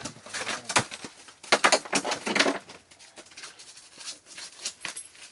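Quick, irregular slaps and taps, in a dense run about two seconds in and thinning out after: a freshly landed kokanee flopping on the snow-covered ice.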